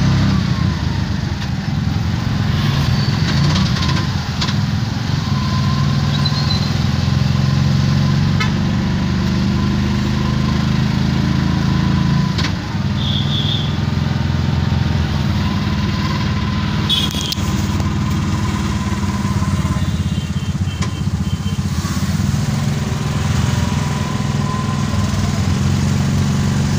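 Vehicle engine running steadily, heard from on board as it drives slowly along a street.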